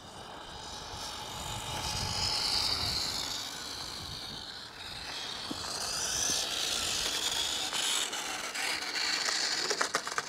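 Brushless-motored WPL D12 RC truck running, its high motor-and-gearbox whine rising and fading twice, with a burst of rapid clicks near the end.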